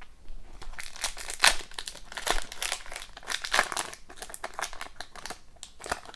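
Foil wrapper of a hockey card pack crinkling and tearing as the pack is opened by hand, in a rapid run of irregular crackles.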